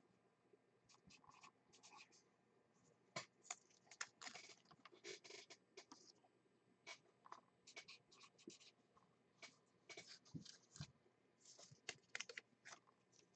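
Faint scratching of a pen writing on paper, in short irregular strokes.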